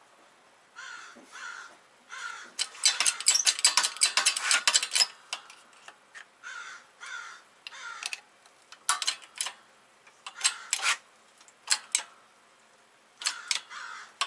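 Crows cawing over and over, loudest in a run of overlapping caws about three to five seconds in. Between the calls come light metallic clicks of a screwdriver working a wheel-bearing circlip into its groove.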